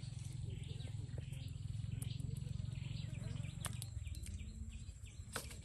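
Birds chirping repeatedly over a steady low rumble, with a few scattered sharp clicks.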